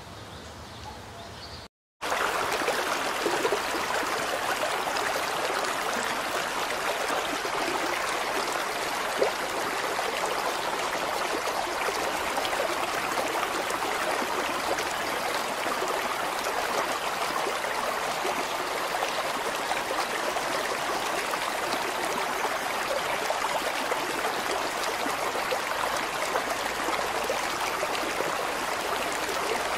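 River water rushing, a loud, steady, even rush that cuts in abruptly about two seconds in after a brief moment of silence.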